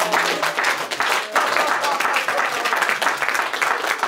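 Audience applauding, a dense run of hand claps.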